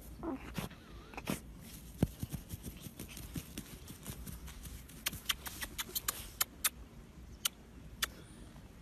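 Dog digging in soil: scratching with a scatter of short sharp clicks as dirt and grit are flung by its paws, coming thickest in the second half, over a faint low rumble.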